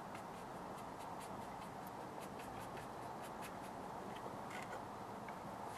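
Paintbrush flicking and scratching across watercolour paper in many quick, short strokes, laying in grass marks. Faint, over a steady low hiss.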